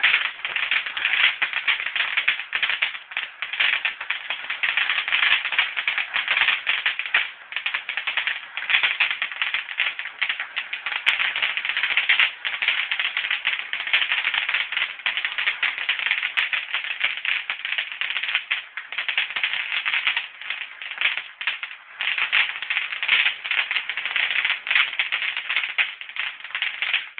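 A spark-spraying firework fizzing and crackling with a dense, rapid crackle.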